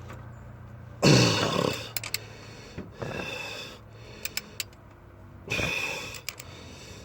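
Heavy breathing and grunting of a man straining on a wrench, with a few sharp ratchet clicks as he tightens an engine head bolt.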